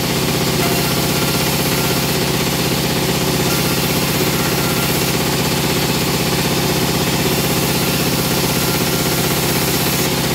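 Plywood veneer peeling machine (rotary lathe) running steadily as a log is peeled, a constant machine drone with a fast low throb underneath.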